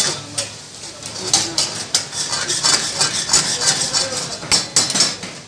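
Metal ladle clanking and scraping against a steel karahi wok, many sharp knocks in quick succession, as lamb pieces are stirred over high heat. Sizzling from the pan runs under the knocks.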